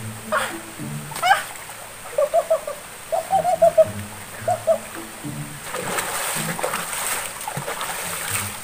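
Water splashing as a man standing in a shallow stream pool scoops water over his head and face, starting a little past halfway. Before it, clusters of short chirping notes are the loudest sound.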